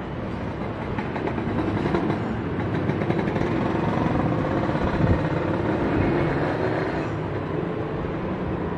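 Cessna 172P Skyhawk's four-cylinder Lycoming piston engine and propeller droning as the plane flies overhead. It grows louder toward the middle and eases off slightly near the end. There is a brief low thump about halfway through.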